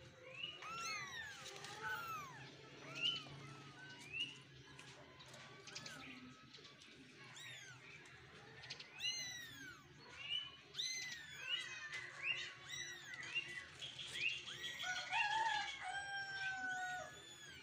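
Several young kittens mewing over and over in short, high-pitched cries that overlap one another.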